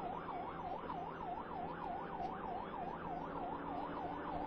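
Police car siren in rapid yelp mode, sweeping up and down about four times a second, over a steady low hum of the car.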